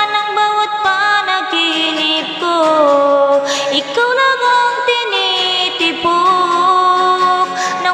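A woman singing into a handheld karaoke microphone, with long held notes that slide from one pitch to the next, accompanied by an acoustic guitar strummed live.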